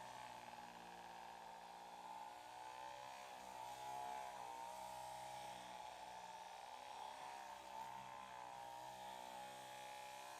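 Electric vibrating massage machine buzzing steadily, its pitch wavering slightly now and then.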